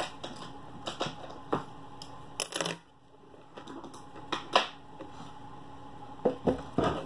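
Scattered light clicks and knocks of small objects being handled on a dresser top, about eight in all, spread unevenly with pauses between.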